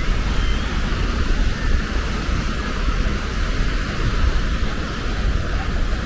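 Wind on the microphone: a steady low rumble under an even hiss.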